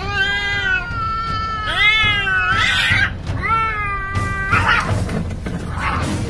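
Two domestic cats caterwauling in a territorial standoff: long, drawn-out wavering yowls that rise and fall in pitch. About four and a half seconds in, the yowls break into harsh hissing and spitting bursts as the fight starts.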